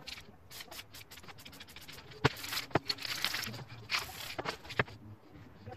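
Short scrapes and hisses, with scattered sharp clicks and knocks, as spray paint cans and a flat scraping tool are worked over the painting on the table.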